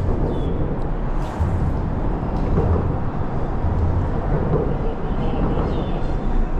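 Boat motor running steadily at trolling speed.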